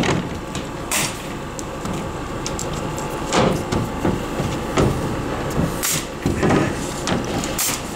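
Plywood roof sheathing being set down and shifted on timber rafters: wooden knocks and scrapes, with several sharp shots from a pneumatic nail gun fastening the sheets.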